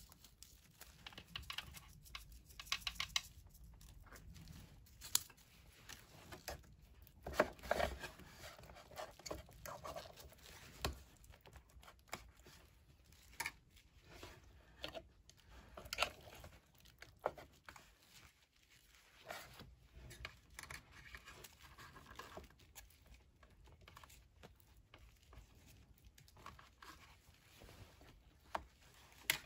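Plastic fork scraping and tapping in an opened metal can of shredded beef and spreading the meat onto a flour tortilla: scattered short scrapes and clicks with soft crinkling.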